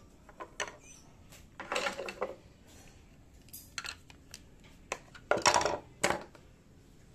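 Scattered metallic clinks and taps as a steel plate is taken off a Siruba industrial buttonhole sewing machine and a screwdriver is handled on the bench, coming singly and in short clusters, the loudest about five and a half seconds in.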